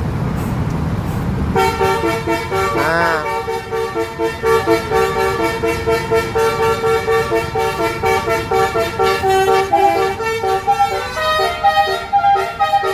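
Takumi basuri musical bus horn playing a melody, its tones stepping quickly from note to note, starting about a second and a half in after a low engine rumble; near three seconds one tone sweeps up and back down.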